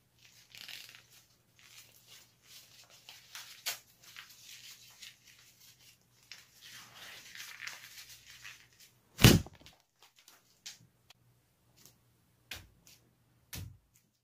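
A small paper flag being torn and crumpled by hand: rustling and ripping for about nine seconds. Then a single loud thump, followed by two softer knocks near the end.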